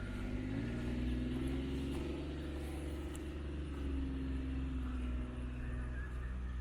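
A motor vehicle's engine running, a steady low rumble with a hum that shifts up and down in pitch.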